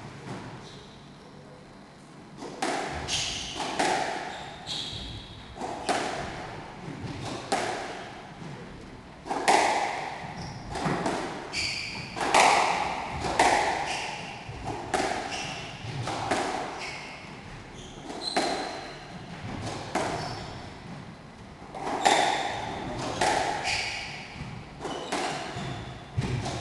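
A squash rally: the ball is struck by rackets and slaps off the court walls every half-second to a second, each hit echoing in the court. Short high squeaks of shoes on the wooden floor come in between. The rally starts about two and a half seconds in.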